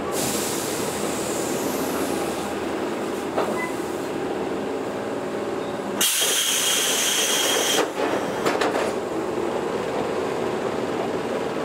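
Onboard sound of a Toyohashi Railway 1800 series electric train: a steady hum with bursts of compressed-air hissing. There is a short hiss at the start and a louder one of about two seconds midway with a whistling tone in it, followed by a few sharp knocks.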